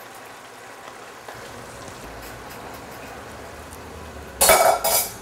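Pot of rice and water boiling on the stove, a steady bubbling hiss, with a low hum coming in about a second in. Near the end, two loud, brief noises.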